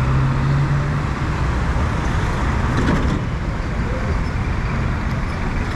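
Street traffic: motor vehicles running and passing in a continuous wash of road noise, with one engine's steady hum strongest in the first second, then fading.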